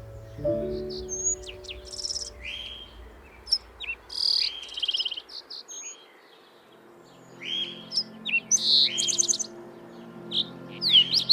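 Several birds calling: short buzzy trills, quick downslurred notes and sharp chips, in a rainforest chorus. Soft sustained background music lies under them, fading out about halfway through and returning near the end.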